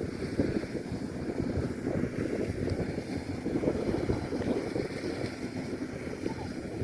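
Kubota DC-105X rice combine harvester running in the field, a steady, uneven rumble with wind buffeting the microphone.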